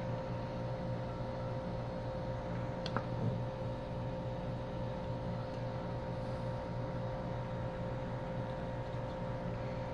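Steady whirring hum of a small electric fan-driven bench machine, holding a few fixed tones throughout, with a single light click about three seconds in.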